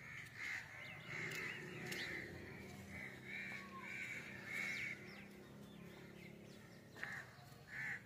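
Crows cawing: a quick series of short caws, a pause of about two seconds, then a few more caws near the end.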